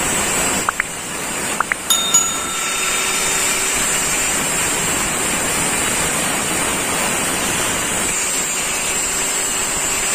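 Electric angle grinder with a cutting disc running steadily as it cuts a lengthwise groove into the end of a wooden axe handle, the slot that will seat the axe blade. The sound dips briefly about a second in, with a few sharp ticks.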